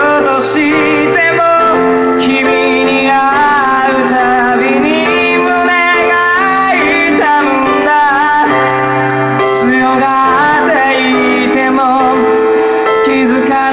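Man singing live to his own electronic keyboard accompaniment: sustained keyboard chords under a vocal line with vibrato.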